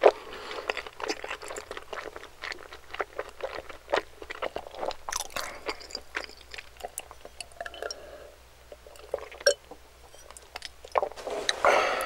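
Close-miked eating of dumplings: chewing and biting with a quick run of wet mouth clicks, and a louder bite near the end.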